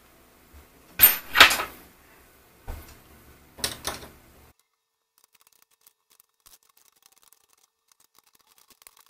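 Handling noise from a small metal-rod CNC frame and tools: a few knocks and clinks, the loudest about a second in, then nearly silent about halfway through with only faint ticks.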